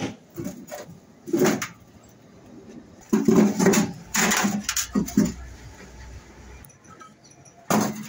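Hollow concrete blocks knocking and scraping as they are set into a metal wheelbarrow and onto one another. A few single knocks come first, then a busier clatter from about three to five seconds in, and another knock near the end.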